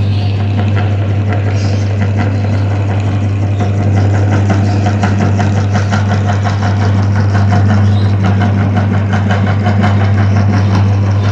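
Meat grinder running on colourful soap: a steady loud motor hum with rapid crackling clicks as the soap is crushed through.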